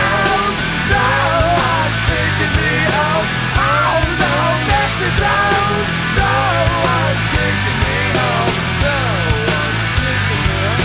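A loud guitar-band rock song, in a grunge or punk style, with a singing voice over steady drums and bass.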